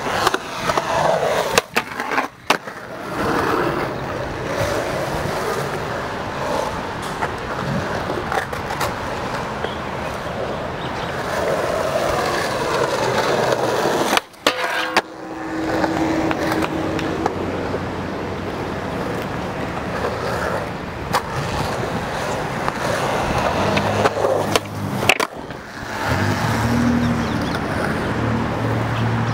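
Skateboard wheels rolling on concrete, with several sharp pops and landing clacks of the board, and a short steady grind along a flat rail about halfway through.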